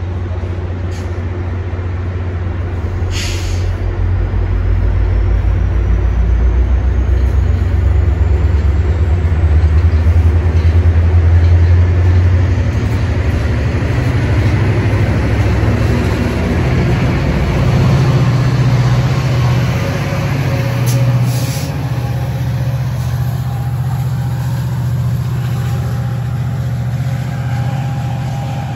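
A Metra commuter train's diesel locomotive running close by: a deep engine drone that grows louder over the first dozen seconds, then settles to a slightly higher steady note. A short sharp hiss comes about three seconds in.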